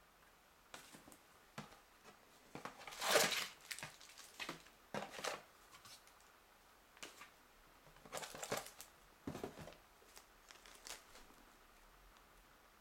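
Paper and cardboard rustling in irregular bursts as a warranty card, leaflets and a reel box are handled, the loudest about three seconds in, with a small plastic bag handled near the end.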